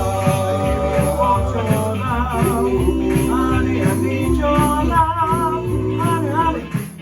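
Doo-wop style group singing with band backing: a lead voice with vibrato over held harmony notes and a steady beat.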